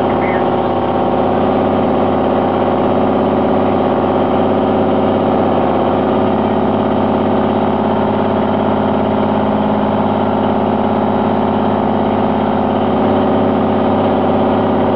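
Fire apparatus diesel engine running steadily with an even, unchanging drone.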